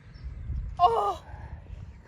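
A brief wordless vocal exclamation, a short groan with falling pitch about a second in, over low rumble from wind on the microphone.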